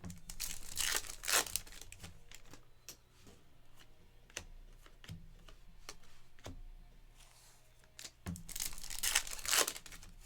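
Foil trading-card pack being torn open and its wrapper crinkled: two bouts of crackly tearing, one about a second in and a longer one near the end, with light taps in between.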